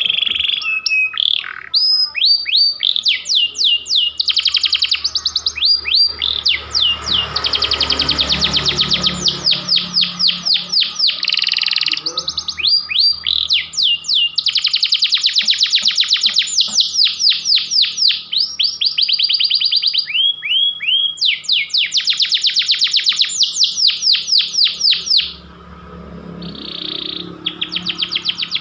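Domestic canary (panda-marked) singing loudly and without letup. Its song is long rolls of rapid repeated notes and trills, broken by short pauses, with a softer passage near the end.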